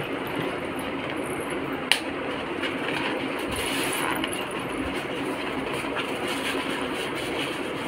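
Gift-wrap paper and a cardboard box being handled and unwrapped, crinkling, with one sharp click about two seconds in, over a steady background hiss.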